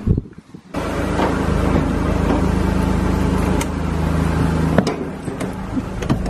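Car engine running at a steady low idle, with a few clicks and knocks as the car door is opened and someone gets into the seat.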